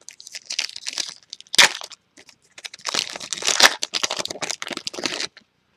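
A trading card pack's foil wrapper being torn open and crinkled by hand: irregular crackling in two stretches, with one sharp crack about a second and a half in, stopping shortly before the end.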